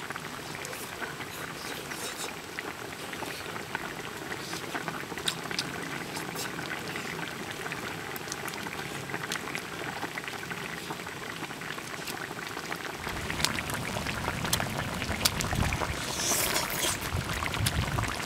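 Fish stew simmering in a large iron wok: steady bubbling with many small pops, getting louder and fuller about two-thirds of the way through.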